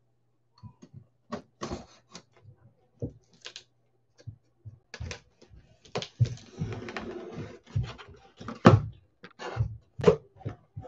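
Shrink wrap being cut with a box cutter and peeled off a cardboard box: scattered clicks and crinkles at first, turning into a denser crackle of plastic and cardboard handling over the second half, with a few sharp snaps.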